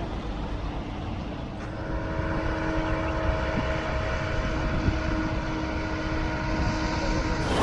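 A motor vehicle running steadily: a low, noisy drone with a few steady humming tones, growing slightly louder.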